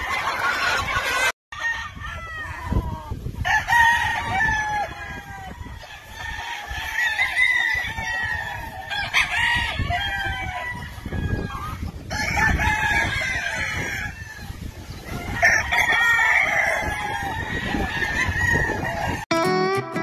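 Many gamefowl roosters crowing over one another, with chickens clucking among them. Guitar music comes in near the end.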